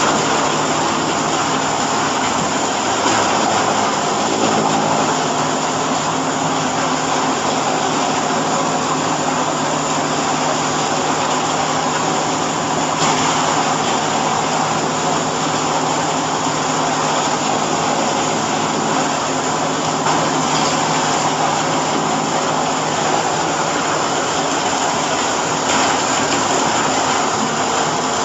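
Hydraulic chopped-hay bagging baler running: a steady machine drone with a low hum and no distinct strokes or breaks.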